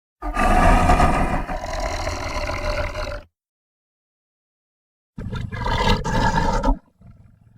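Dragon roar sound effect: a loud roar of about three seconds. After a pause of about two seconds comes a shorter roar of about a second and a half, trailing into a faint low rumble.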